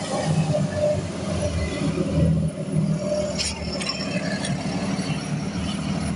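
Steady low rumble of a vehicle engine in passing street traffic, with two short clicks about three and a half seconds in.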